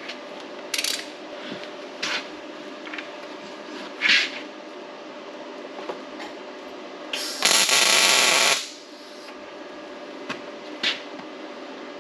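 Arc welder laying a tack weld on steel plate: a crackling hiss about seven seconds in, lasting about a second and a half. Before it, a few sharp metallic clinks of steel parts being handled.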